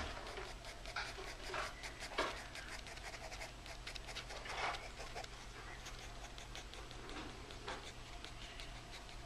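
Pencil scratching on sketchbook paper in quick repeated shading strokes, a few of them louder.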